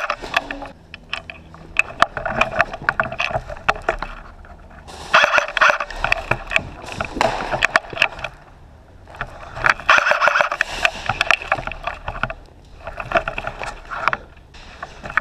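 Airsoft guns firing in several bursts of rapid shots, with quieter gaps between.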